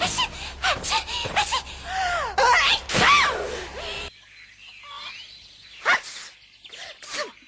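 Anime female character's voice catching in short, high breathy gasps as a sneeze builds, loudest just before the scene cuts about four seconds in. After the cut, a sharp sudden sneeze about six seconds in and a couple more short ones near the end.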